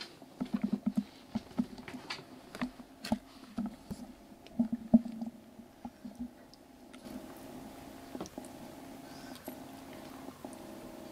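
Young kittens shifting about on towels in their bedding box: soft irregular rustles and small knocks. About seven seconds in, these give way to a steadier low hum.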